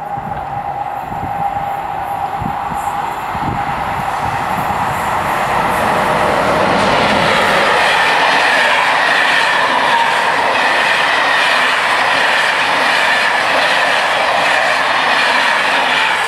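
SNCB/NMBS M4 intercity train passing over a level crossing: a steady rush of wheels on rails with clickety-clack, building over the first few seconds and staying loud once the coaches are alongside. The crossing's warning bell rings as a steady tone at the start before the train noise buries it.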